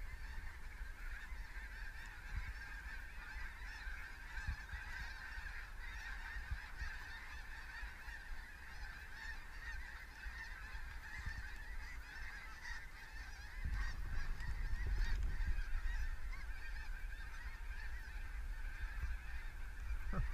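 A large flock of geese honking overhead in a continuous, overlapping chorus. A low rumble joins in about two-thirds of the way through.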